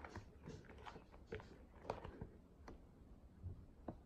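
Fingers squeezing and kneading slime mixed with instant snow: faint, irregular crackling clicks, closer together in the first couple of seconds and sparser later.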